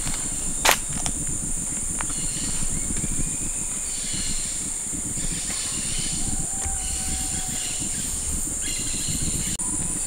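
Tropical forest insects holding a steady, high-pitched drone, with short repeated calls rising over it several times. Under it is the low rustle of footsteps through leaf litter, and a single sharp snap comes under a second in.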